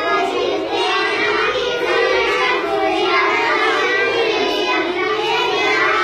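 A group of schoolchildren singing together in unison.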